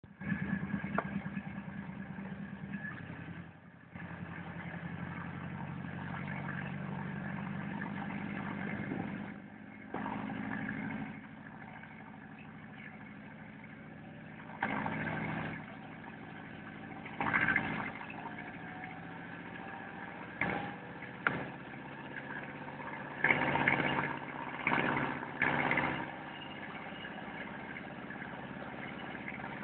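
Brantly B-2 helicopter's four-cylinder Lycoming piston engine running on the ground, a steady engine hum with several short louder surges.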